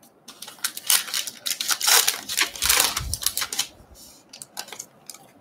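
Wrapper of a 2020 Allen & Ginter X trading card pack being torn open and crinkled by hand: a quick run of sharp crackles and tearing rustles, loudest in the middle and thinning out near the end.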